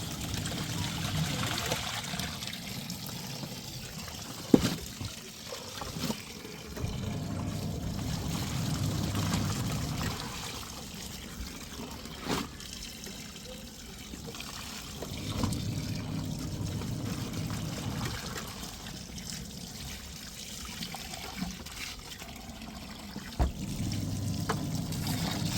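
Washing machine at work: water trickling and sloshing, with its motor humming in spells of about three seconds, then pausing, over and over. A few sharp knocks.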